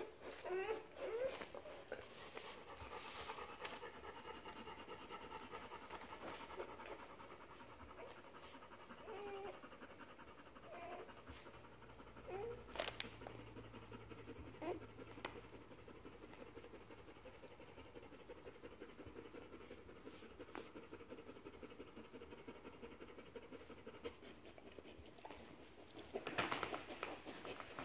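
German shepherd–boxer mix panting steadily while whelping, with a few short, faint squeaks from her newborn puppy.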